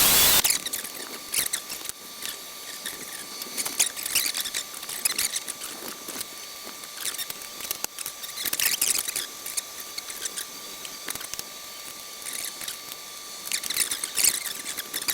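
A drill runs for a brief burst at the start while holes are drilled out to A5 size in the aluminium flaperon parts. Then come scattered light clicks and scrapes of metal parts and tools being handled, over a faint steady high whine.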